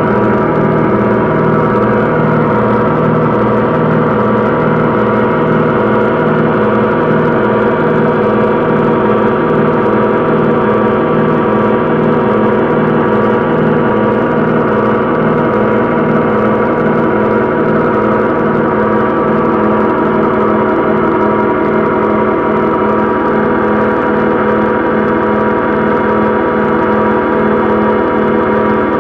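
Live electronic noise music from a patch-cabled modular synthesizer: a loud, dense drone of many sustained tones, ringing like a gong, with a regular low pulsing underneath.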